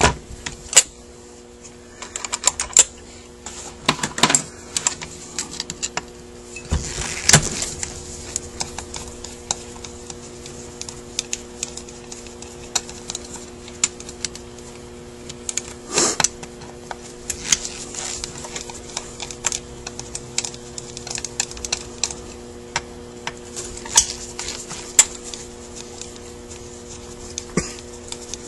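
Irregular clicks and taps of a screwdriver and small metal parts against a Rochester Quadrajet carburetor as it is taken apart, a few of them louder, over a steady low hum.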